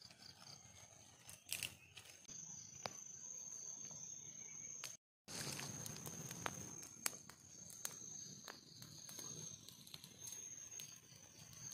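Small twig fire crackling, with scattered sharp snaps over a steady high-pitched insect drone. The sound cuts out briefly about halfway through.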